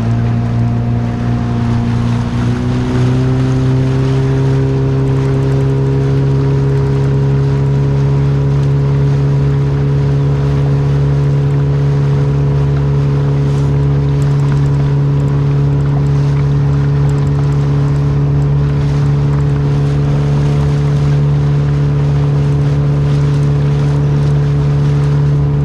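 Outboard motor on an inflatable boat running under way at speed, a steady engine drone whose pitch rises a little about two to three seconds in and then holds, over rushing wind and water.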